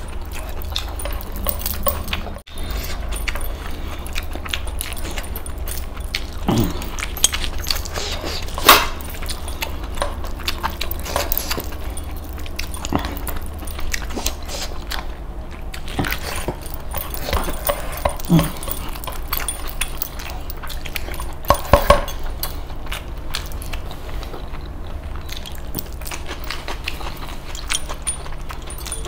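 Close-miked eating: a man chewing, smacking his lips and slurping as he eats chicken curry and rice with his hands, a continual run of wet mouth clicks with a few louder smacks about nine seconds in and again near twenty-two seconds. A steady low hum runs underneath.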